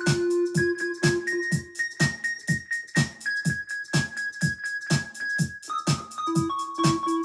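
Electronic music with a steady beat of about two kicks a second, sustained keyboard notes over it.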